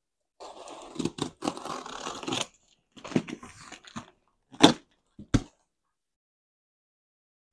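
Packing tape on a cardboard box being cut and torn with a scratchy, tearing noise, then the cardboard flaps being pulled open with two sharp cracks a little after halfway.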